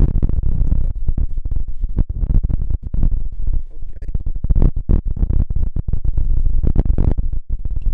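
Background music with heavy bass.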